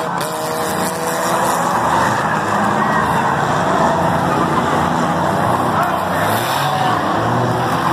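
Several stock-car race engines running at once on an oval track, their pitch rising and falling as the cars accelerate and lift around the turns.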